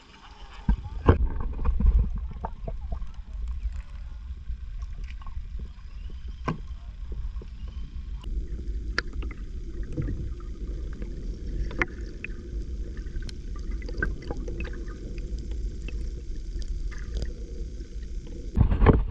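Lake water heard through a camera held underwater: a muffled, steady low rumble of water moving past the camera, with many scattered sharp clicks and bubbling. Splashes about a second in and again near the end, as the camera goes under and comes back out.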